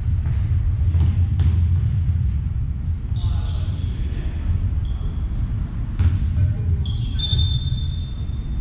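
Basketball game in play on an indoor court: the ball bounces with a few sharp thumps, and short high sneaker squeaks sound on the floor. Players' voices call out, all echoing in the large hall.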